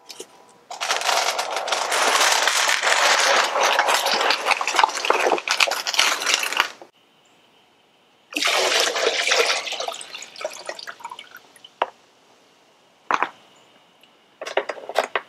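Old engine coolant, with a little transmission fluid in it, poured from a drain pan into a plastic bucket and splashing: one long pour of about six seconds, then a shorter pour that trails off. A few short knocks near the end.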